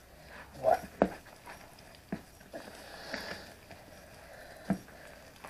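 Hand mixing sugar into stiff beignet dough in a basin: a few soft, irregular slaps and knocks.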